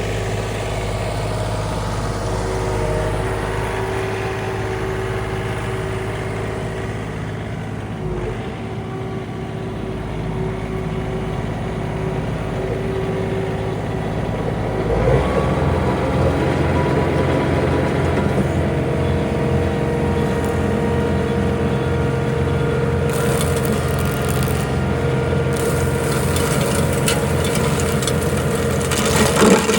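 John Deere 3039R tractor's diesel engine running steadily while driving a PTO stump grinder. About halfway through the engine note changes and grows louder, and later the grinder's cutting of the wood adds a crackling, hissing layer.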